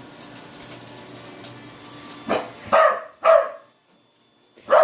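A dog barking: three short barks in quick succession about two seconds in, then one more near the end.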